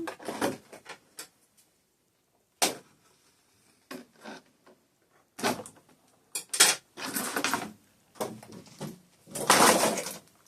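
Doll box packaging being handled and pried open by hand: irregular rustling and crinkling, with a sharp click about two and a half seconds in and a longer, louder rustle near the end.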